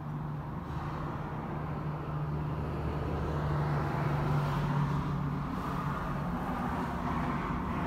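Mini's 1275cc Cooper S four-cylinder engine running steadily at idle, heard from inside the cabin, with a low even hum that grows a little louder about two seconds in.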